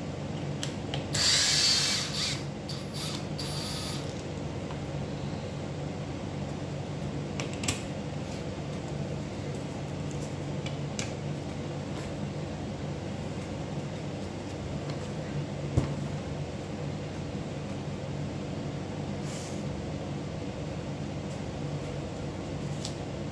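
A steady low mechanical hum runs throughout, with a few light clicks of the parts of a Stihl MS250 chainsaw being handled during disassembly. A brief loud rushing hiss comes about a second in.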